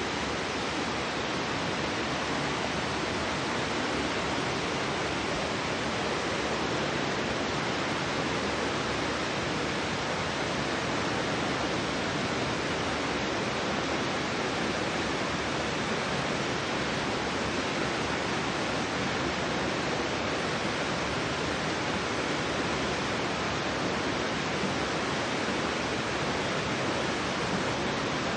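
Mountain stream water rushing, an even, unbroken hiss at a steady level.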